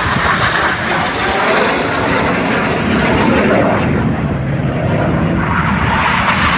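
Jet engine noise from aerobatic display jets flying past: a steady, loud rushing sound with small swells.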